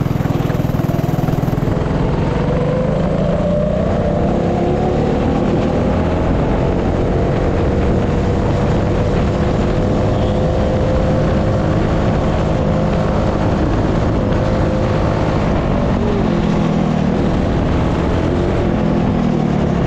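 196 cc single-cylinder four-stroke go-kart engine with a 26 mm carburettor, running hard on a top-speed run. Its pitch climbs slowly and holds high, then falls away about 16 seconds in. The owner judges it not tuned correctly for the top end.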